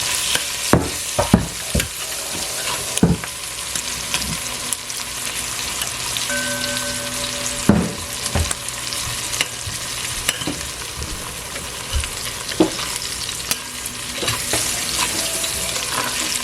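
Chopped onion, garlic and pimento peppers frying in oil in a pot with a steady sizzle. A spoon knocks and scrapes against the pot several times as they are stirred.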